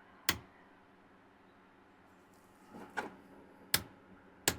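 Four sharp clicks of a power switch being flicked off and on, a short pause after the first and then three in quick succession, cycling an LED ceiling light through its colour modes.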